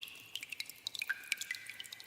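Water dripping in a cave: many drops plinking into water at an irregular pace, several a second, some leaving short ringing tones.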